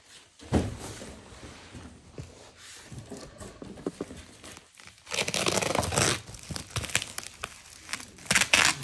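Hands picking at and tearing the plastic packing tape on a woven polypropylene sack bale, with crinkling plastic. There is a thump about half a second in, a longer rip about five seconds in, and short rips near the end.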